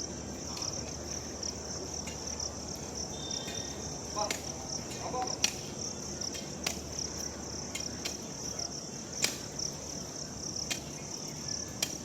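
Insects chirring steadily in a high, pulsing drone, with a few sharp knocks or clicks scattered through it.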